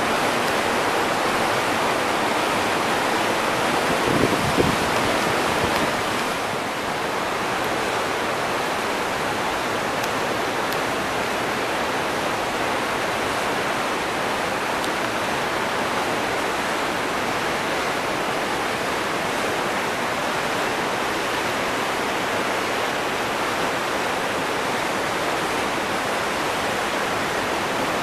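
Tall waterfall pouring down a rock face onto rocks below: a steady, even rush of falling water that eases slightly about six seconds in.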